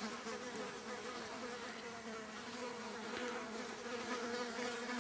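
Faint, steady insect buzzing, an even drone with no break.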